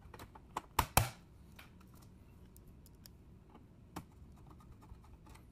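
Sheet-metal top cover of a Kia Stinger UVO car head unit being fitted onto its steel chassis: light metallic clicks and two sharp knocks close together about a second in, then a single click near four seconds as a screwdriver works a corner screw.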